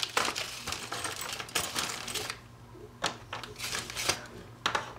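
A plastic zip-top bag of small metal RC car parts being rummaged through, with parts clicking and clinking together and the bag crinkling. Parts such as a shock absorber are set down on a wooden bench. There is a short quieter spell about halfway through.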